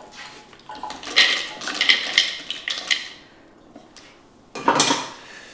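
Rinsed, soaked almonds tipped from a sieve into a plastic food processor bowl, rattling and clicking for about two seconds. Near the end comes a short, sharp clatter of hard plastic on the processor.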